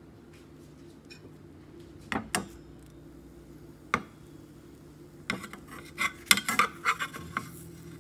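Metal spatula clinking and scraping against a frying pan as it slides under a pancake: a few sharp knocks about two and four seconds in, then a busier run of clatter over the last few seconds, above a steady low hum.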